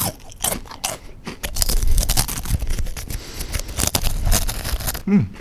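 Dry breadstick being bitten and chewed close to the microphone: a fast run of crisp cracks and crunches, densest through the middle, with a short voiced hum near the end.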